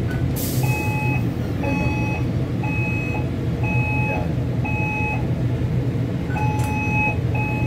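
Electronic beeper sounding short beeps about once a second, with a pause a little past the middle before the beeps resume, over a steady low machine hum. A short hiss of air comes about half a second in.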